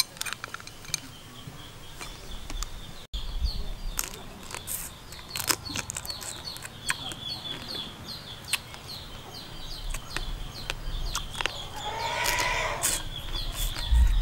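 Sharp clicks and cracks of boiled crab being picked apart and eaten, over steady high chirping. About twelve seconds in, a chicken calls once for about a second.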